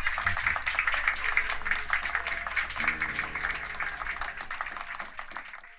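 Applause from a small group, many hands clapping, slowly dying away. A low held note from an instrument sounds under it from about halfway through.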